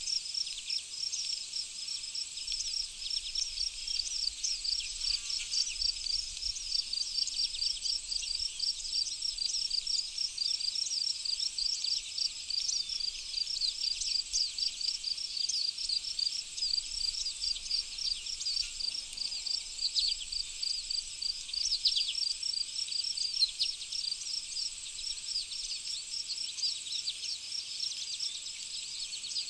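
Birds singing in a dense chorus of high chirps and quickly repeated notes, over a steady high-pitched insect trill.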